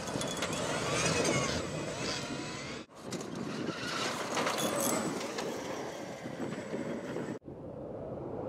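All-electric off-road race car with twin 9-inch DC motors driving hard on dirt: motor whine rising and falling in pitch over tyre and gravel noise. The sound breaks off sharply twice, about three seconds in and near the end, where shots are cut together.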